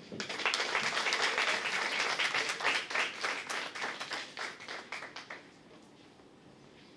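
Audience applauding, thinning out and dying away after about five seconds.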